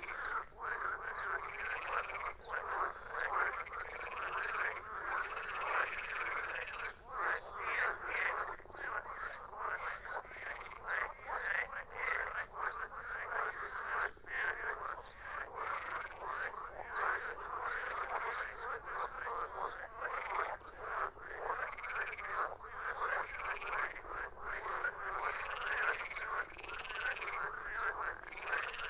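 A chorus of many frogs croaking, dense overlapping calls with no pause.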